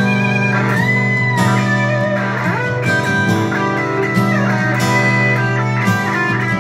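Lead electric guitar solo on a Gibson semi-hollow-body guitar, with notes bent and slid up and down in pitch, over steady acoustic guitar chords.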